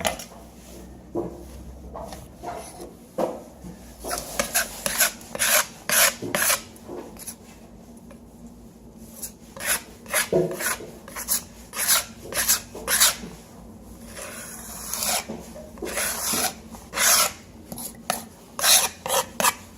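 A hand tool spreading a thin layer of Stick-N-Stay flooring adhesive over the bare floor where a vinyl tile was removed: a run of short, irregular scraping and rubbing strokes, coming faster in the second half.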